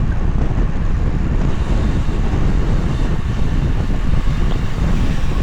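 Steady wind rush on the microphone of a camera carried on a moving bicycle at riding speed.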